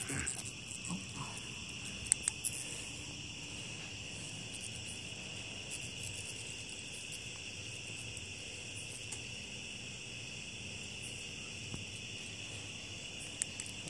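Steady chorus of crickets trilling in one high, even band, with a few sharp clicks about two seconds in from wire cutters snipping at nylon fishing net.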